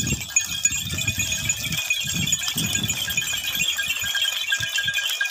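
Small metal bells on a walking goat herd jingling and clinking continuously as the animals move, a dense, even metallic jangle.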